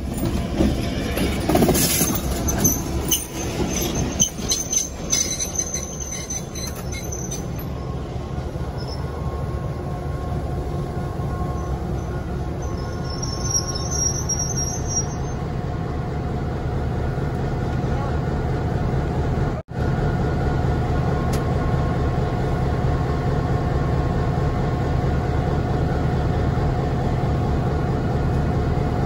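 Diesel passenger train hauled by Boston and Maine-painted EMD F7 locomotives creeping past at walking pace, with wheels clicking over rail joints and squealing on the rails for the first several seconds. It then stands with the locomotive's diesel engine idling, a steady low hum. The sound cuts out for an instant about two-thirds of the way through.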